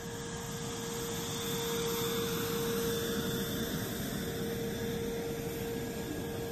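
Chengdu J-20 fighter's jet engines running at low power as it taxis: a steady rushing noise with a constant whine, growing a little louder about two seconds in.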